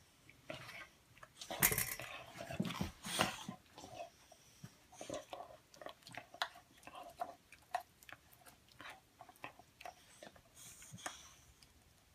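Chewing: a run of irregular wet smacks and crunching clicks, a few a second, busiest and loudest a couple of seconds in.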